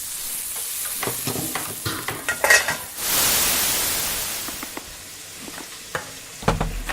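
Restaurant kitchen work: utensils and pans clinking and knocking, then a loud hiss about three seconds in that fades away over a couple of seconds, and a heavier knock near the end.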